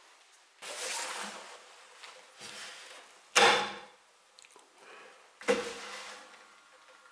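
Wooden chair parts being handled: a few brief scrapes and rubs, and two sharp wooden knocks, the loudest about three and a half seconds in and another about five and a half seconds in.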